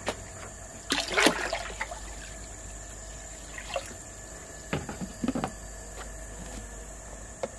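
Water sloshing and splashing in the plastic upper tank of a gravity water filter about a second in, stirring bubbles around the submerged filter candle. A few light plastic knocks follow as the tank's lid is handled.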